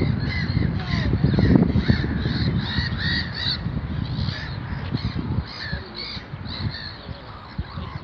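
Gulls calling over and over in many short cries, thinning out after about five seconds, over a constant low rumble.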